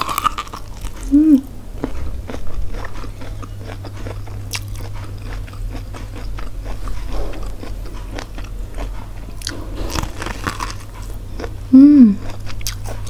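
Close-up biting and chewing of boiled sweet corn on the cob: dense small crunches and wet clicks as kernels are bitten off and chewed. Twice, about a second in and near the end, a brief loud hum rises and falls in pitch over the chewing.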